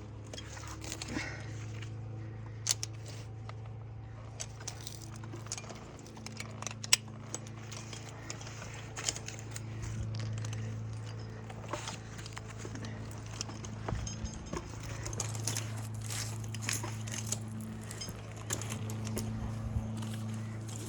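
Metal climbing hardware clinking and jangling, with scattered light crackles, over a steady low hum.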